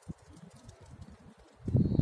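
Strong wind buffeting the microphone with a low rumble, dropping into a short lull and then gusting back in loudly near the end.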